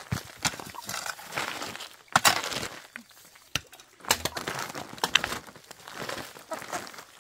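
Irregular crunching and cracking with sharp knocks, loudest about two seconds in, easing off briefly around three seconds before picking up again.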